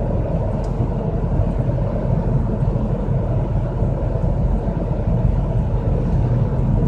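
Audi A4 B5 driving at speed: steady road and tyre noise with a low pulsing hum underneath, blending with the road noise. The owner suspects the driveshaft.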